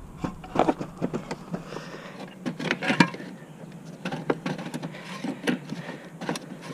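Irregular clicks and knocks as a fuel pump's locking retainer ring on the tank is worked loose with hand tools. The loudest knock comes about halfway through.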